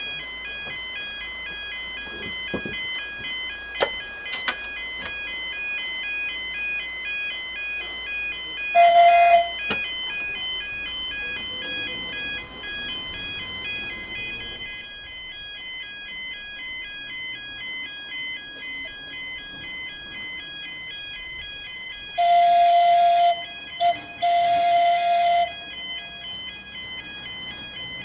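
Level-crossing warning alarm sounding, a rapidly pulsing set of several high tones. A loud horn blasts once about a third of the way in and twice more near the end.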